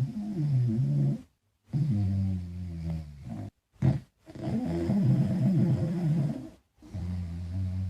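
Small dog snoring in its sleep: a run of long, low, pitched snores, each a second or two long, with short pauses between them.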